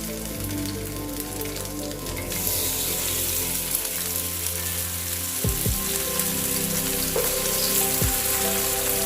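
Marinated mackerel shallow-frying in hot coconut oil in a pan, a steady sizzle that grows clearly louder about two and a half seconds in.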